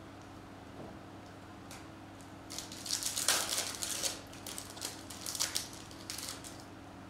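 Foil wrapper of a trading-card pack crinkling as it is picked up and opened, a flurry of crackles lasting about four seconds, starting a few seconds in.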